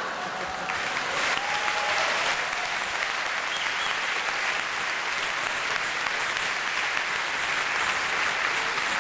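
A large theatre audience applauding steadily in response to a joke.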